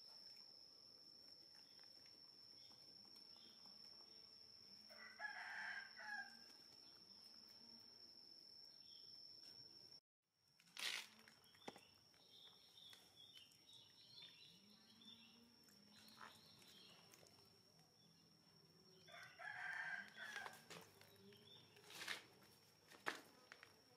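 A faint rooster crowing twice, about fourteen seconds apart, over a steady high-pitched whine, with a few sharp clicks.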